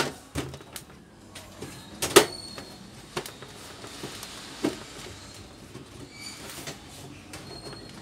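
Sheet-metal outer casing of a George Home GDM301B-16 microwave oven being slid and pressed into place by hand: metal scraping with three sharp knocks, the loudest about two seconds in.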